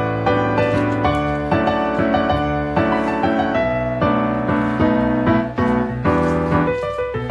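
Background music played on piano, a continuous flow of struck notes.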